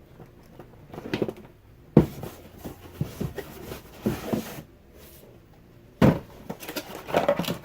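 Handling noises: two sharp knocks, about two seconds in and about six seconds in, with rustling and light clatter between them as things are picked up and set down, most likely the power adapter and its cord being taken out.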